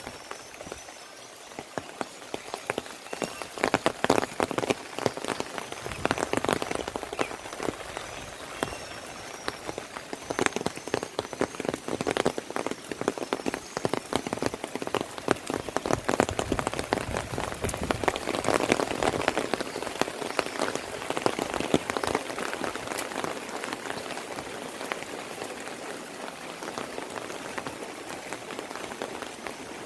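Heavy rain falling, a dense, irregular patter of drops close by, swelling into heavier spells now and then.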